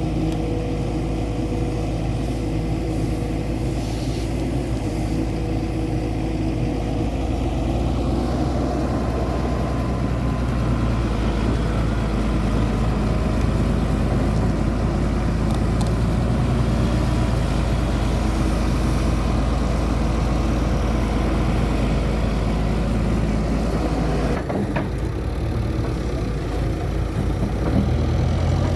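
Diesel engine of an earthmoving machine running steadily, getting a little fuller about eight seconds in and dipping briefly near the end.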